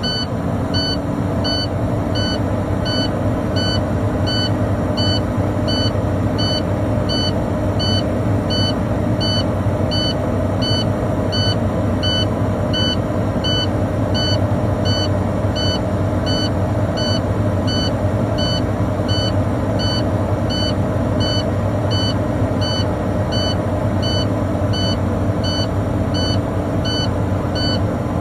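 Air-brake truck's diesel engine held at raised revs to build air pressure, with the in-cab low-air-pressure warning buzzer beeping steadily, a little over once a second, while pressure is still below the 60 psi warning point.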